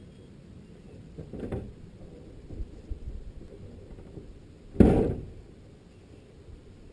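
Car door of a 1957 Citroën DS19 shutting with a loud thud about five seconds in, after a lighter knock about a second and a half in as the driver gets in.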